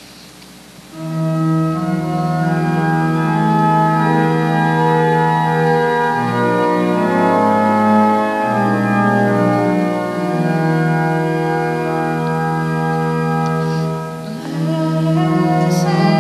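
Organ playing slow, sustained chords, starting about a second in, with a brief lift between phrases near the end: the introduction to the responsorial psalm after the first reading.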